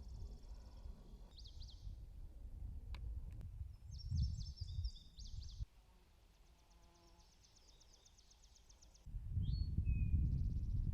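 Outdoor ambience with wind buffeting the microphone in low rumbling gusts, loudest near the end. Over it, small birds give high, quick chirps and trills.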